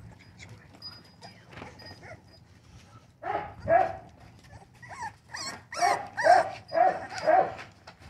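Four-week-old American bully puppies yelping and whining while feeding. After about three seconds comes a run of about seven short, high-pitched yelps.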